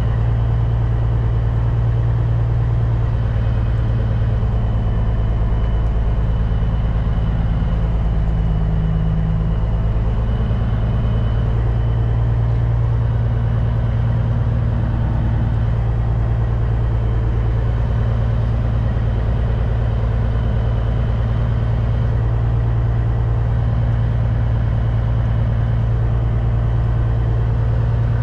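The truck's CAT C15 diesel engine running steadily at low revs, a constant deep hum that neither revs up nor changes pitch.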